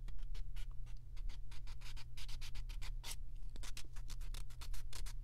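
A nail file scraping across a painted fingernail in quick back-and-forth strokes, about six a second, filing the top layer of nail polish off the nail.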